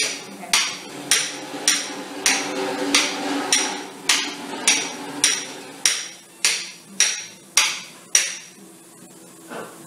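Surgical mallet striking a metal knee-implant extraction blade in steady, evenly spaced blows, a little under two a second, about fifteen in all, stopping about eight seconds in, with one lighter knock near the end. The blows drive the blade along the implant to free it from the bone during a knee revision.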